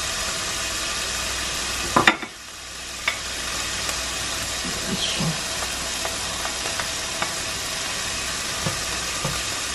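Pork cubes sizzling in oil in a nonstick frying pan with a steady hiss. A sharp knock about two seconds in, then light taps and clicks as chopped garlic is scraped off a board into the pan with a spatula.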